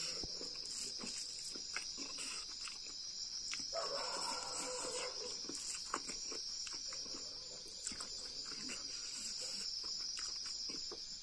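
Close eating sounds: fingers mixing rice on a plate and chewing, many small clicks and rustles. Behind them, a steady high chirring of insects.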